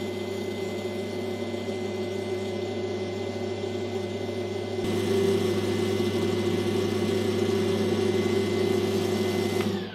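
Small benchtop lathe running steadily, a hum with a thin high whine, as a resin indicator knob is shaped on it. About halfway in there is a click and the sound turns louder and rougher; near the end the lathe is switched off and its whine falls in pitch as it spins down.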